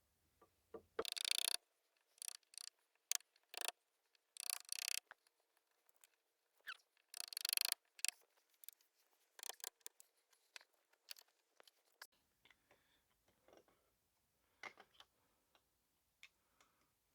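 A hand tool scraping and cutting into wood in short strokes, with sharp clicks and taps between them, as a recess for a latch is pared out.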